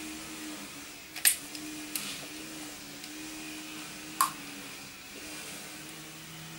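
Two sharp snaps, about three seconds apart, of a cutting tool as the compressor's start capacitor is cut open, over a faint steady hum.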